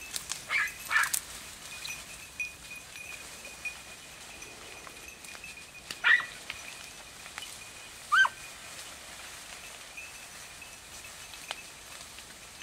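Andalusian podenco hounds giving short, high yelps as they work a rabbit in the brush: two close together at the start, one about six seconds in and another about eight seconds in. A faint steady high tone runs underneath.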